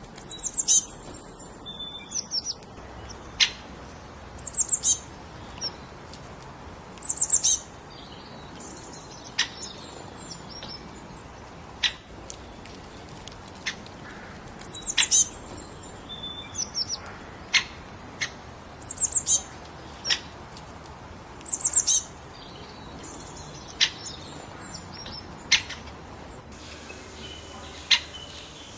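Songbirds chirping: short, high-pitched chirps in quick clusters, recurring every couple of seconds, with single sharp downward-sweeping notes between them, over a steady background hiss.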